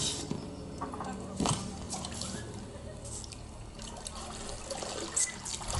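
Lake water splashing and dripping around an inflatable paddle board as people move in the water beside it and climb onto it, with small irregular splashes, a stronger one about a second and a half in.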